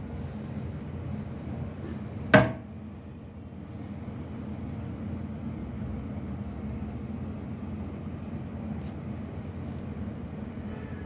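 Steel digital safe's door shutting with a single sharp clunk about two seconds in, over a steady low background hum.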